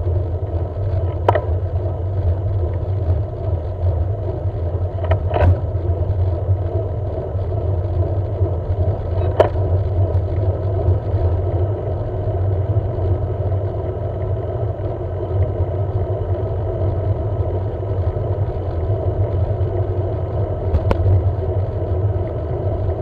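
Steady rumble of wind and tyre noise from riding on a road bicycle, with a few sharp clicks.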